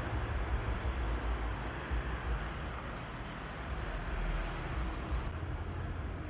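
Steady outdoor street noise: a low rumble of wind on the microphone over distant road traffic.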